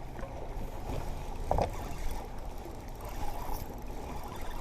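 Fishing boat on the water in strong wind: a steady low rushing of wind and water, with one brief sharper sound about a second and a half in.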